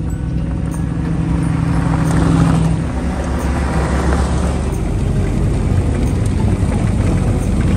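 Engines of vintage military off-road vehicles running as they drive past one after another on a gravel track, loudest about two and a half seconds in as one passes close.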